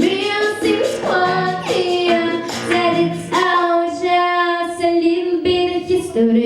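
A young girl singing a song with instrumental accompaniment, holding one long note near the middle.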